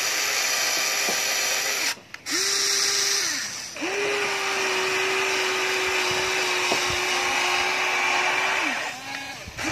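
Small electric gear motors of a toy remote-control excavator whining as the boom and bucket move. The whine stops briefly about two seconds in, runs again, then holds steady for about five seconds before winding down near the end.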